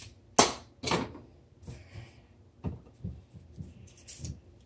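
Sharp plastic clacks and knocks from handling a small spring-powered Nerf pistol. There are three loud clacks in the first second, then a few softer knocks.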